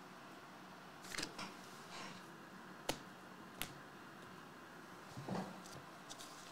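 Trading cards being handled and flicked through by hand: faint rustles and slides of card stock, with two sharp clicks less than a second apart near the middle.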